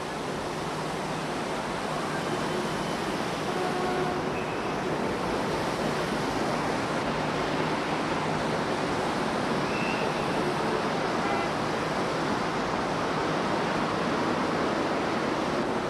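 Plaza fountain jets splashing into their pool: a steady rush of falling water.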